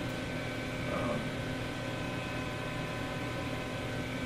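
Steady background hum and hiss of the recording's room tone, with a few faint steady tones running through it and a faint brief sound about a second in.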